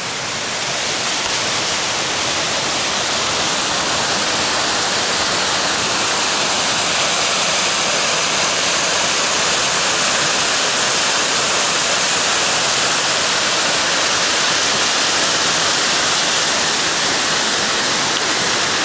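Mountain brook waterfall cascading over rock ledges: a steady rush of falling water that grows a little louder over the first couple of seconds and then holds even.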